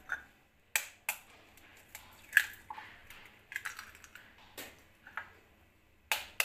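Eggs being cracked open into a glass bowl: a series of sharp taps and clicks as the shells are struck and broken, the loudest about two and a half seconds in.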